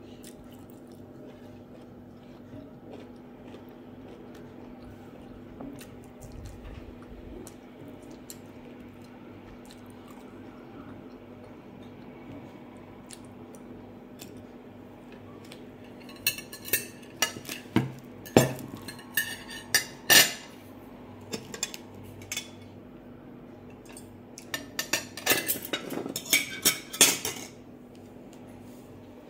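Metal forks clinking and scraping on clear glass plates as the dishes are gathered and stacked, in two bouts of sharp clinks, one about halfway through and one near the end. Before that there is only quiet chewing over a steady low hum.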